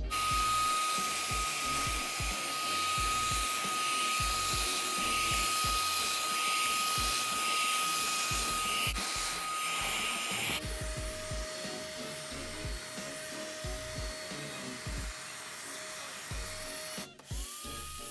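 Small handheld vacuum cleaner's motor running with a steady high whine and a rush of air through its nozzle. About ten seconds in the whine drops to a lower pitch, and near the end it cuts out briefly and spins back up to the higher pitch.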